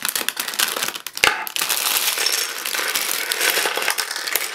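Clear plastic bag of LEGO pieces crinkling as it is handled and emptied, with small plastic LEGO pieces clattering onto a wooden table. A sharp knock comes about a second in.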